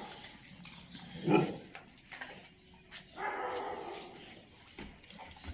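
A dog barks once, loudly, about a second in, and a dog vocalises again for about a second near the middle.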